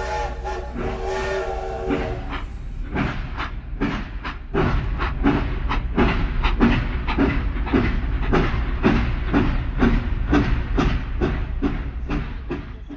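Train horn sounding for about two seconds, then the rhythmic clickety-clack of train wheels over rail joints, about two knocks a second, over a steady low rumble of the moving train.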